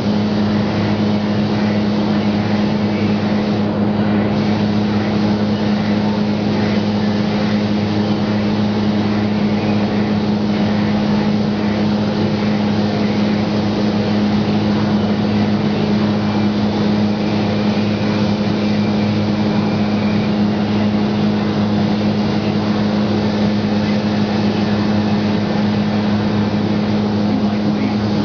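Paint spray booth's ventilation running: a steady, unbroken hum with a low droning tone under a constant rush of air.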